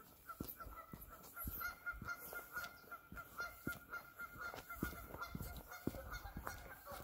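A bird calling in a rapid run of short repeated notes on one pitch, over footsteps on a trail.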